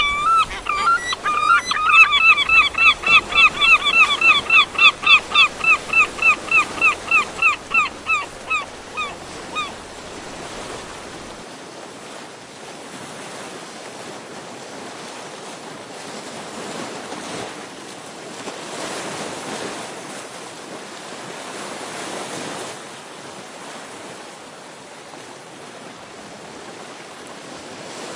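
Waves breaking and washing at the foot of sea cliffs, swelling and easing. For the first ten seconds a bird calls over them in a rapid run of about three notes a second, growing fainter toward the end of the run.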